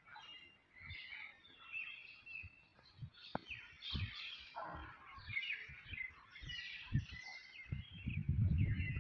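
Many small birds chirping and twittering, with scattered short low knocks; a low rumble comes in near the end.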